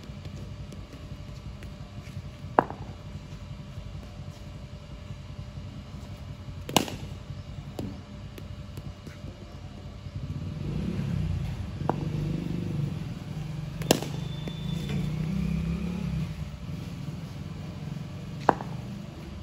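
Cricket bat striking the ball in net practice: sharp cracks every few seconds, about six in all, over a steady low rumble that swells for several seconds in the middle.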